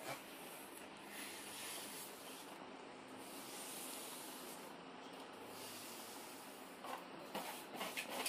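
Latex balloons being blown up by mouth: breathy, hissing puffs of air, with a few light clicks near the end.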